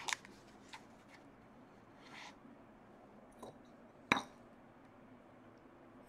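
Drawing tools being handled on a table: a few light clicks and a soft rustle, then one sharp click about four seconds in.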